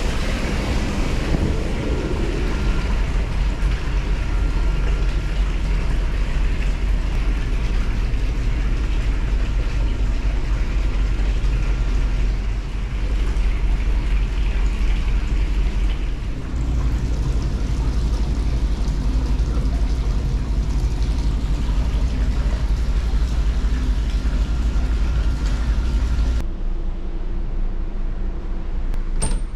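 Steady rushing noise over a deep rumble, heard out on the deck of a moving ferry: wind on the microphone, the ship's engines and water churning in the open-air bath. Near the end it cuts off abruptly to a quieter indoor hum.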